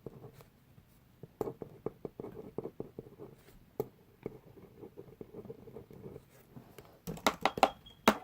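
Pencil or pen writing on paper: a scatter of light scratches and taps, busiest and loudest about seven seconds in.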